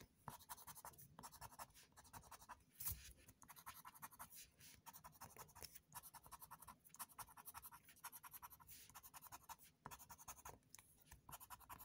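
Faint, rapid scratching of a scraper rubbing the coating off a scratch-off lottery ticket in many short, quick strokes.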